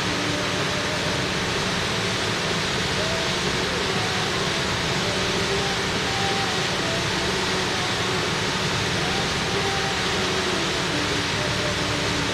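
A steady, even rushing noise, with a faint voice underneath at times.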